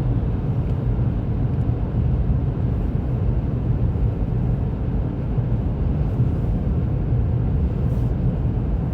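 Steady low rumble of a car's engine and tyres heard inside the cabin while driving along a highway.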